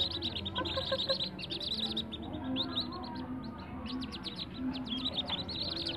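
A brood of whistling duck ducklings peeping together: a constant stream of many short, high, downward-sliding peeps that overlap one another.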